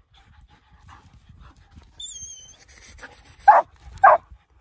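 Dogs barking: two loud, short barks near the end, after a brief high, wavering whine about two seconds in. Low panting and rustling come before them.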